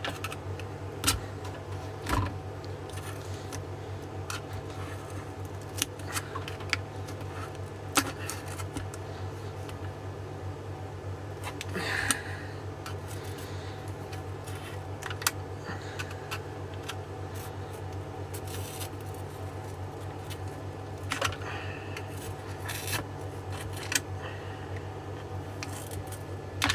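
Scattered clicks, taps and short scrapes of hand tools prying and cutting a battery pack's parts free from silicone glue, over a steady low hum.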